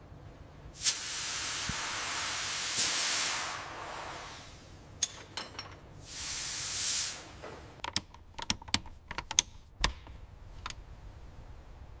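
Two bursts of spray hissing, the first long and the second shorter, followed by a quick series of sharp clicks and taps.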